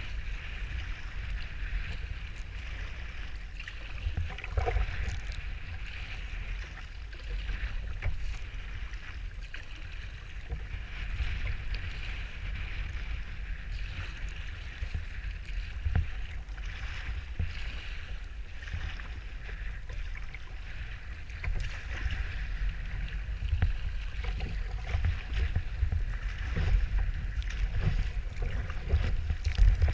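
Wind buffeting the microphone in uneven gusts, over water hissing and splashing against a kayak's hull as it is paddled through choppy sea, with a few louder splashes, the biggest near the end.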